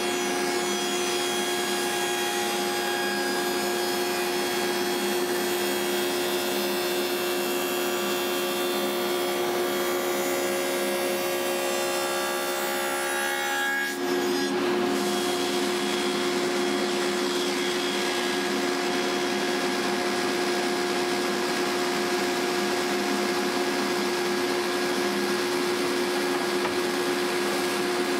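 Table saw fitted with a dado set running and cutting a rabbet in wood: a steady machine hum under the noise of the cut, with a brief dip about halfway through.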